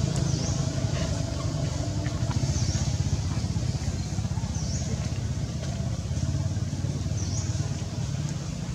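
Steady low rumble of a motor vehicle engine running, with a faint high chirp repeating about every two seconds.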